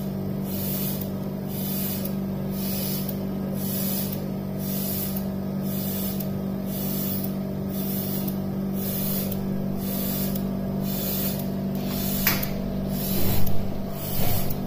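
Operating-room suction machine running: a steady low motor hum with a high hiss that pulses in a regular rhythm. A sharp click about twelve seconds in, and a few knocks near the end.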